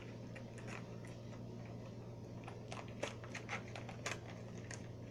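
Irregular light clicks and ticks of half-popped corn kernels being handled in their plastic snack tray, with a couple of sharper clicks about three and four seconds in.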